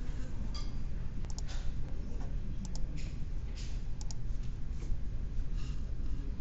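Scattered clicks of a computer mouse and keyboard at irregular intervals, some in quick pairs, over a steady low hum.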